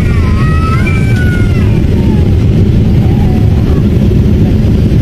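Loud, steady low rumble of a Boeing 777 airliner heard from inside the cabin: engine and airflow noise.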